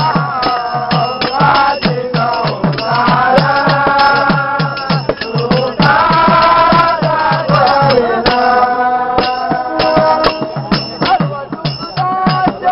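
A group of men singing a Hindu devotional bhajan in chorus, over a steady percussion beat of about three strikes a second with sharp clicks.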